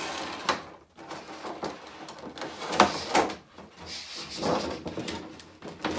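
Thin clear plastic display protector being handled and pressed back together: irregular plastic clicks, crinkles and scrapes, the loudest a sharp snap about three seconds in.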